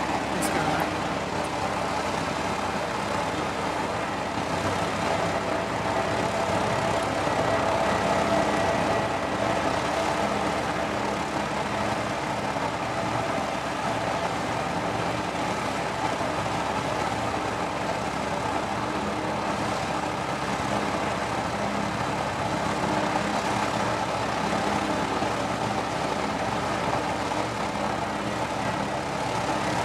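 Lockheed C-130H Hercules's four Allison T56 turboprop engines running at taxi power, propellers turning: a steady drone made of several held tones, swelling slightly partway through.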